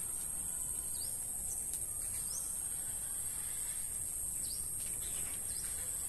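Rural outdoor ambience: a steady, high-pitched insect drone with a few short bird chirps over it.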